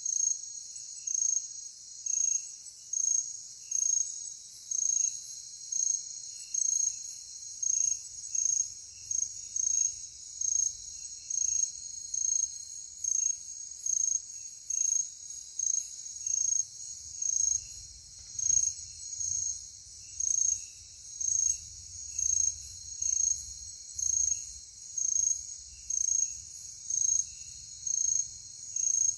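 Night insects chirping steadily in a forest: a loud, high chirp repeats about once a second, over a fainter, quicker chirping lower in pitch.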